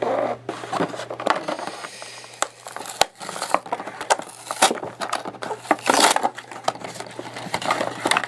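Plastic blister pack and cardboard of a Hot Wheels toy package crinkling and crackling as it is opened, with many short clicks and rustles.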